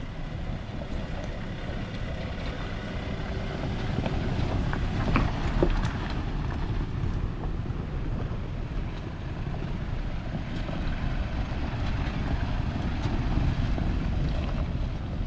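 Four-wheel-drive vehicles rolling past on a rocky dirt track: a steady low rumble of engines and tyres over loose stones, with a few small stone ticks about five seconds in and wind buffeting the microphone.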